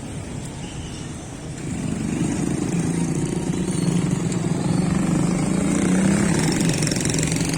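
A road vehicle's engine running, growing louder about a second and a half in as it draws near, then holding steady.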